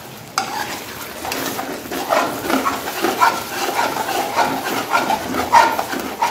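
Steel ladle stirring and scraping a thick, saucy chicken stir-fry around an aluminium pot, with a sharp clink a fraction of a second in, then repeated scrapes about two or three times a second, the loudest near the end.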